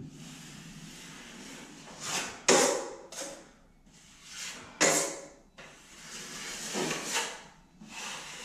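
A metal drywall knife scraping and wiping joint compound over paper drywall tape at a wall joint, in a series of short scraping strokes.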